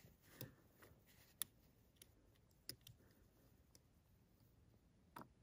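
Near silence with a few faint, scattered clicks: a thin jumper wire being worked into a plastic connector on a snowmobile's wiring harness.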